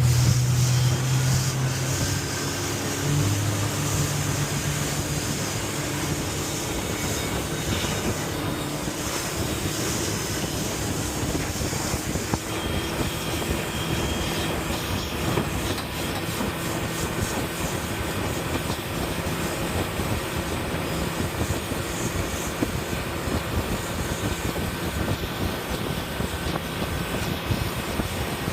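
Speedboat under way: a steady rush of wind and water noise with the motor running. A strong low engine hum in the first few seconds fades away.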